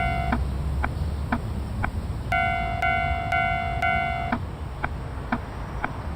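Railway level-crossing warning bell ringing its 'kan-kan' tone about twice a second, in two spells with a pause of about two seconds between them; single sharp ticks at the same pace fill the pauses, over a steady low rumble.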